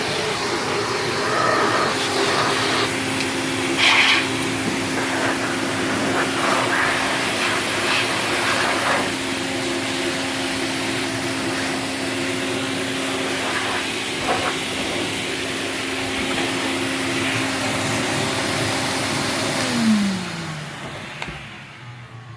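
Hoover 427 vacuum cleaner running steadily, with a few short knocks and bumps. About twenty seconds in it is switched off and its motor hum falls in pitch as it winds down.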